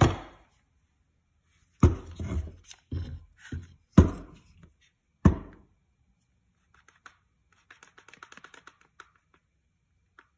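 Hard knocks of a wooden ukulele neck and a plastic one-handed bar clamp being handled on a wooden workbench, about six knocks in the first five or so seconds, the loudest at the very start and about four seconds in. Then a short run of faint quick clicks as the clamp's trigger is squeezed to clamp the fretboard to the neck for gluing.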